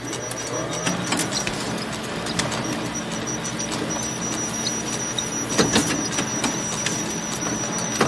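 Photocopier running a copy cycle: a steady mechanical whir with a thin high whine and scattered clicks, and a louder clack a little past halfway.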